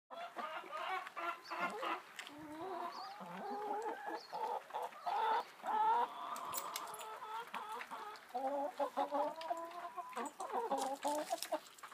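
Backyard hens clucking: a nearly continuous run of short clucks from several birds, with a few longer drawn-out calls mixed in.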